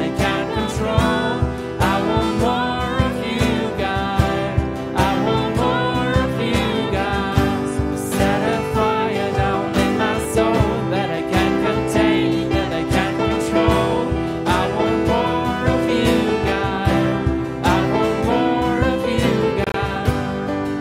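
Worship song sung by a male voice with strummed acoustic guitar.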